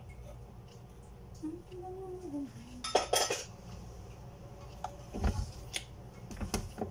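Metal mixer beater knocked and scraped against the rim of a plastic mixing jug to shake off banana bread batter: a quick cluster of sharp clinks about three seconds in, then a few lighter knocks near the end.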